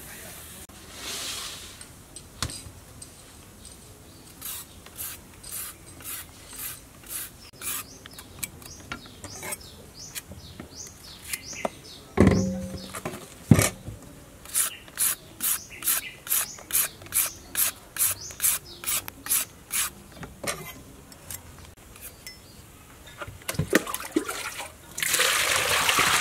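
A carrot scraped over and over with a peeler, in short rasping strokes about two a second, with one loud knock about halfway through. Near the end, water splashes as the carrots are washed in a metal bowl.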